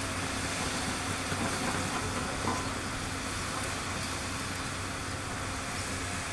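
Diesel-electric locomotive hauling a loaded coal train, its engine running with a steady low hum under a wash of wheel and track noise, with a single small knock about two and a half seconds in.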